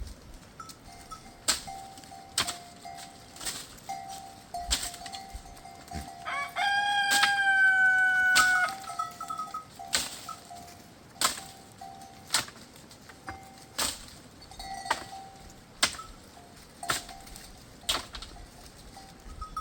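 A rooster crows once, a single long call of about two seconds, about a third of the way in. Sharp clicks come roughly once a second throughout, over a faint on-and-off ringing tone.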